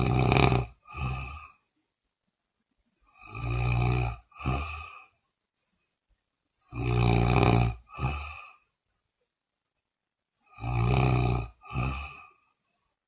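A woman snoring loudly. Four snores come about every three and a half seconds. Each is a long, rough rattle followed at once by a shorter second one.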